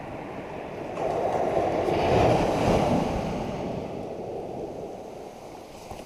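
A wave of surf washing up the beach, rising about a second in and then fading away over the next few seconds.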